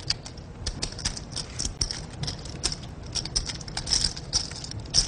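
Poker chips clicking against each other as they are handled at the table: a dense, irregular run of small sharp clicks.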